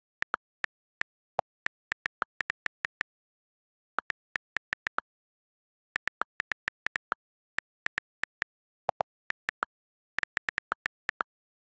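iPad on-screen keyboard key clicks as text is typed: quick runs of sharp, high clicks with short pauses between them. A few clicks are lower in pitch.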